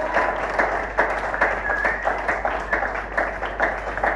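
A small audience applauding, many separate hand claps overlapping.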